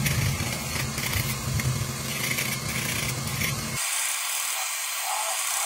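A handheld gas torch's flame hissing as it heats a copper pipe joint for soldering. For the first few seconds a low rumble runs under the hiss. About four seconds in the rumble drops away suddenly, leaving a thinner, higher hiss.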